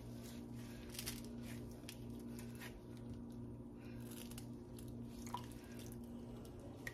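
Faint, soft squishing of warm mozzarella curd being squeezed and folded by hand, a few irregular squelches over a steady low hum.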